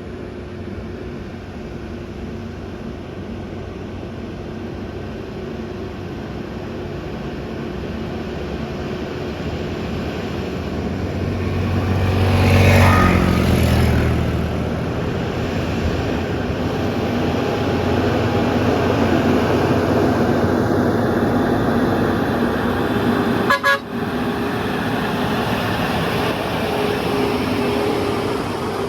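Heavy truck's diesel engine labouring up a steep climb under load. It swells to its loudest about halfway through and stays high after that.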